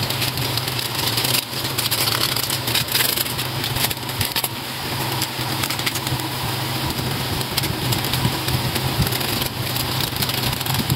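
Udon noodles and cabbage sizzling in a hot frying pan, with many small crackles over a steady low hum.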